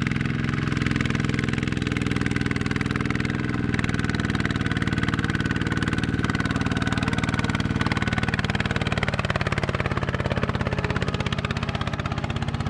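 Single-cylinder diesel engine of a walk-behind two-wheel tractor running steadily under load, a fast, even chugging, as it hauls a loaded trailer through mud.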